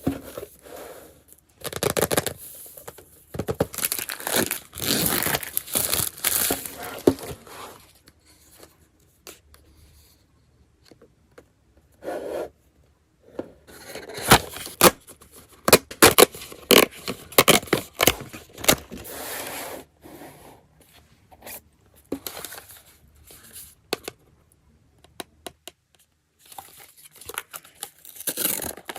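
Packaging of a blind-box figure being torn open and handled: paper and plastic tearing, scraping and crinkling in irregular bursts, with a few quieter pauses.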